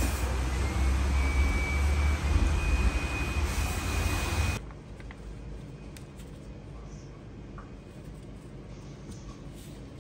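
Wood fire burning in the base of a clay tandoor: a loud, steady rushing noise with a deep rumble, which cuts off suddenly a little over four seconds in. After that only faint handling clicks are left, from samsa dough being shaped by gloved hands.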